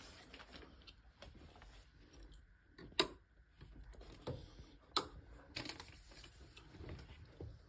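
Quiet cabin with faint scattered clicks and light knocks, and two sharper clicks about three and five seconds in.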